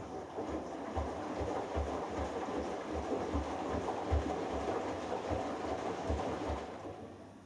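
Hoover Dynamic Next washing machine drum turning during the delicates wash: water and laundry slosh, with low thuds repeating about two or three times a second. The turn slows and stops near the end.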